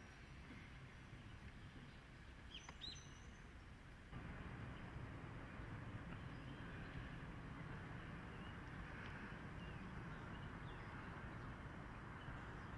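Faint outdoor background noise with a couple of short, high bird chirps about three seconds in. About four seconds in the background gets a little louder, with a few faint chirps after.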